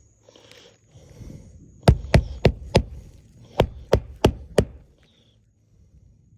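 A run of sharp knocks or blows, like striking or chopping something solid: four quick strikes about two seconds in, then five more after a short pause.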